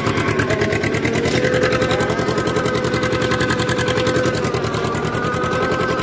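Farm tractor's diesel engine running steadily under load, heard close up from the seat as the tractor drags a rake frame over tilled soil. The engine has a fast, even beat, with a faint steady whine over it.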